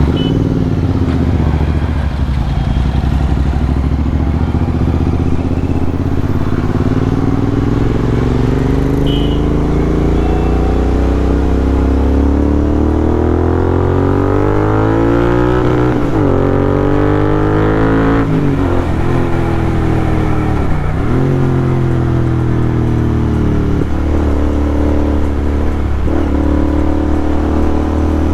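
Royal Enfield GT650's parallel-twin engine on the move: the revs climb steadily for about fourteen seconds, then drop and pick up again with several quick gear changes, roughly one every two to three seconds.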